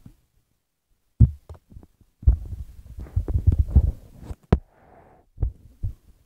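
Irregular low thumps and rubbing from a phone being handled close to its microphone, with a few sharp knocks, likely the toy car wash pieces being bumped.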